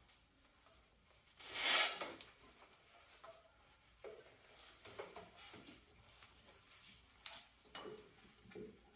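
Workshop handling sounds: one short scraping rustle about two seconds in, then scattered light clicks and knocks as tools and clamps are handled.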